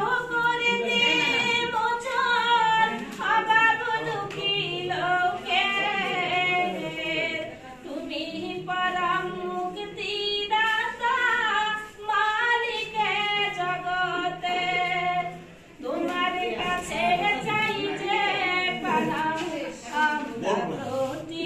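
A small group of women singing a slow song together, unaccompanied, with long held notes. The singing breaks off briefly about three-quarters of the way through, then carries on.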